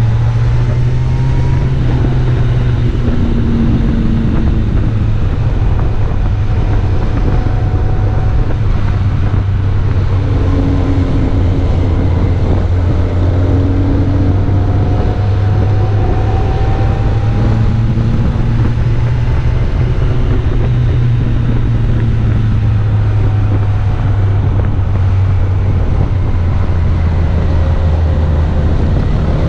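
Motorcycle engine running at a steady low pitch while riding, the pitch rising and falling gently with the throttle, over a constant rush of wind and road noise.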